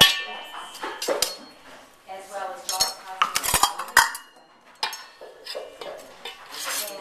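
Metal measuring cups and utensils clinking and knocking against stainless steel mixing bowls while flour is measured out. A sharp ringing strike comes right at the start, with scattered knocks after it and a quick cluster about three and a half to four seconds in.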